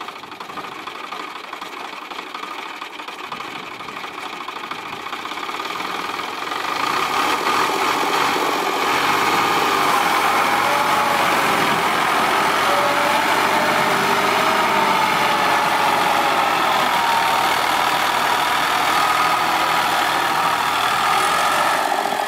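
CHAMP YTO454 tractor's diesel engine working hard as the bogged tractor tries to climb out of deep mud, its rear wheels spinning. It gets louder about six seconds in and then runs steadily, with its pitch wavering as the load changes.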